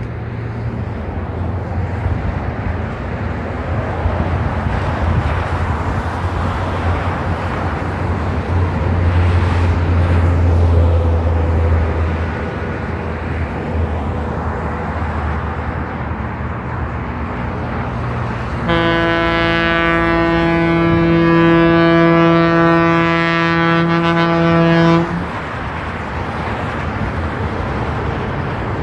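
Passenger train locomotive approaching with a steady low rumble, then sounding its horn in one long chord of several notes, held for about six seconds from about two thirds of the way in and cut off sharply.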